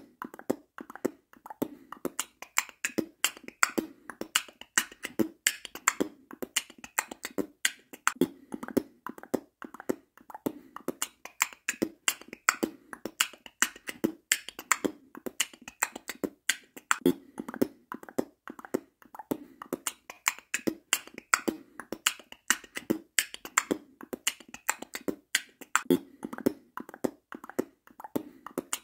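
Royalty-free outro music with a fast, crisp percussive beat of clicks and snaps over a pulsing low tone.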